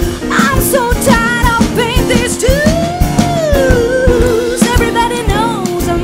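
Female jazz vocalist scat singing wordlessly in quick, wavering runs with one long held note in the middle, over a live jazz quartet of piano, double bass and drum kit.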